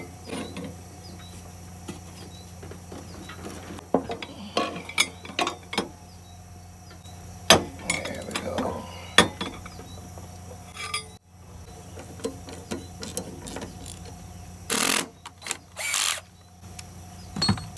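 Socket ratchet clicking in short runs, with metal knocks, as a pipe-extended ratchet is worked on a stuck lawn mower blade bolt. There are two louder bursts of clicking near the end.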